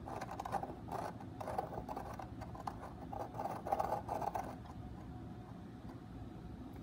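SK Eagle 3748-700KV brushless outrunner motor turned by hand, grinding and scraping in several short uneven bursts: a magnet has broken loose and rubs inside the motor can. The scraping stops after about four and a half seconds.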